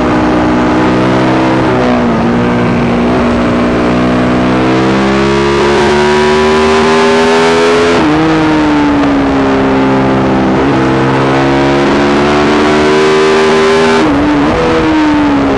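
Yamaha YZ450 four-stroke single-cylinder engine in a supermono race bike, running hard on track. Its pitch rises slowly under load, then drops sharply about halfway through and again near the end. It has a persistent misfire that the owner has been unable to cure and says gets worse after a couple of laps.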